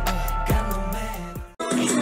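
Hip-hop-style music with deep sliding bass notes that fades and cuts out about one and a half seconds in. It then gives way to a denser live-stage mix of music.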